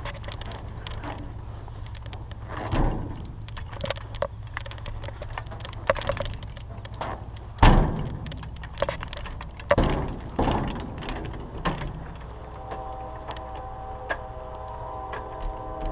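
Tractor engine running steadily with repeated rattles and clanks over it, the loudest knock about halfway through. Near the end a steady whine with several tones joins in.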